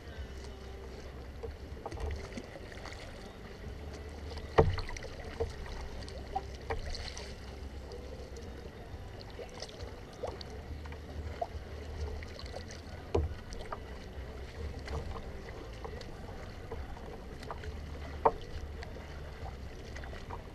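Kayak being paddled through light chop: paddle strokes splashing and dripping, with a few sharp knocks on the hull, the loudest about four and a half seconds in and again near the end, over a steady low rumble.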